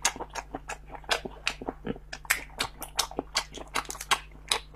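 Close-miked eating sounds of a person eating spicy snails: a quick, irregular run of wet smacking and clicking from the mouth as the snail meat is sucked and chewed, with the shells worked apart between the fingers.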